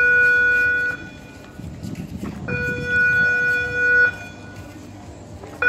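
Electric warning horn of a moving pedestrian swing footbridge sounding in repeated steady buzzing blasts of about a second and a half each, with gaps of about the same length: one blast ends about a second in, another sounds in the middle, and a third starts near the end. It is the signal that the bridge is moving.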